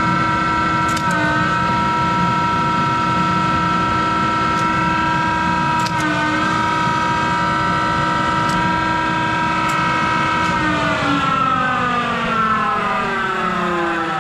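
Monarch 10EE lathe's motor-generator drive running with a steady whine of several tones over a low rumble, then all the tones falling together in pitch from about ten seconds in as it coasts down after being switched off.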